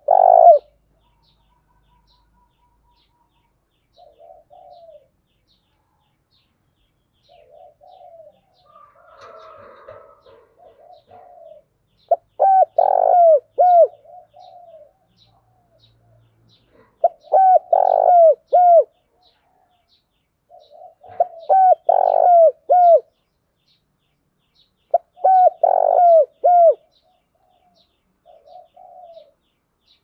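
Spotted dove cooing its repeated call, each phrase a run of short falling notes. Softer coos come in the first half, then four loud phrases follow at about four-second intervals.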